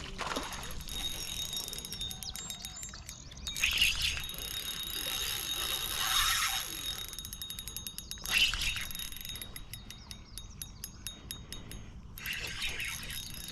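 Fishing reel clicking rapidly and evenly as line is reeled in, in two stretches, the first about a second and a half in and the second from about nine and a half seconds. A few louder bursts of noise fall between them.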